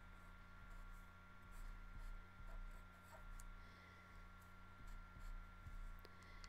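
Sharpie fine-point marker writing on paper: faint, short scratchy strokes over a low steady hum.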